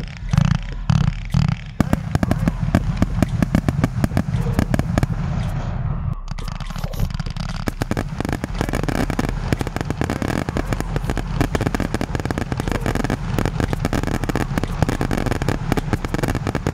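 Fireworks going off: a quick run of loud bangs in the first two seconds, then a long, dense spell of crackling and popping.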